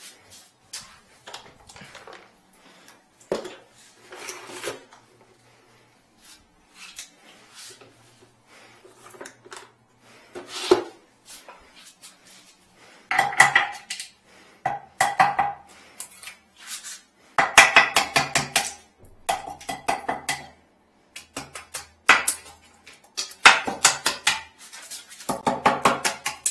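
Hammer driving a steel chisel against the base of a removed porcelain toilet. Light knocks and scrapes at first, then from about halfway in, quick runs of sharp, ringing metal-on-ceramic taps in several bursts.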